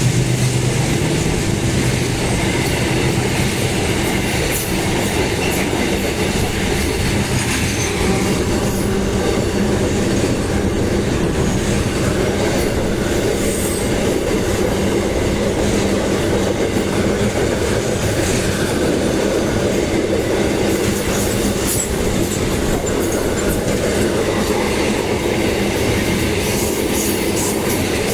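Loaded goods wagons of a freight train rolling steadily past, wheels clacking over rail joints, with sharper clicks in the later seconds.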